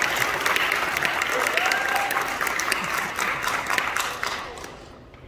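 Audience applauding, with a few voices mixed in; the clapping dies away near the end.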